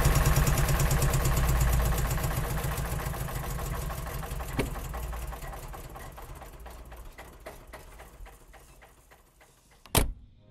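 Car engine idling with a steady rhythmic pulse, fading gradually away; a single sharp click about halfway through, and a loud car door slam near the end.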